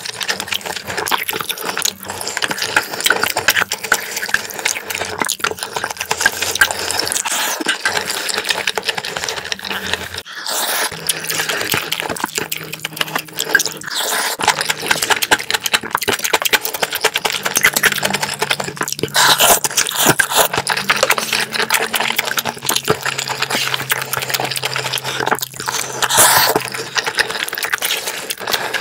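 Close-miked eating of black-bean-sauce noodles and rice: wet chewing, smacking and slurping, with a dense run of clicking mouth sounds.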